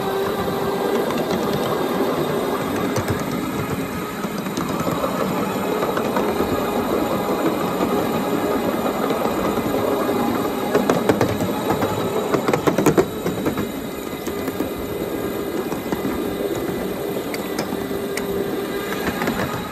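Small ride-on electric train running along backyard track: a steady motor whine under the clicking of steel wheels over the rails. The clatter grows louder about 11 to 13 seconds in.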